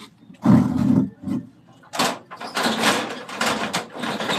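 Irregular knocks and scraping from handling things: one loud knock about half a second in, then a run of scrapes from about two seconds in.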